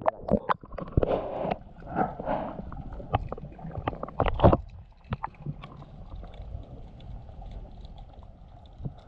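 Muffled underwater sound from a camera held just under shallow seawater: water sloshing and gurgling around it, with scattered knocks and clicks in the first four or five seconds, then a steady low rumble.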